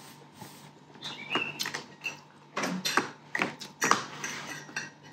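Metal fork clinking and scraping against a ceramic plate as fried noodles are twirled: a handful of sharp clicks, the loudest two a little after three and a half seconds in and near four seconds. A few faint short high squeaks come in between.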